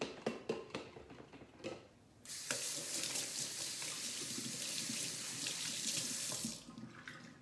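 Kitchen tap running into a sink while hands are washed: water comes on about two seconds in, runs steadily for about four seconds, then is shut off. A few light knocks and clicks come before it.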